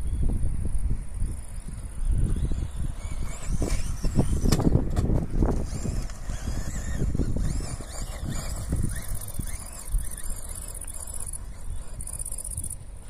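Vaterra Glamis RC buggy's electric motor whining up and down in pitch as it drives and accelerates across dirt, mostly between about four and nine seconds in, over uneven low rumbling and a steady high insect buzz.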